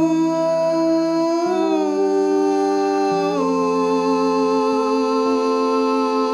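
Voices holding long notes in harmony, the chord shifting twice, then cutting off abruptly at the very end.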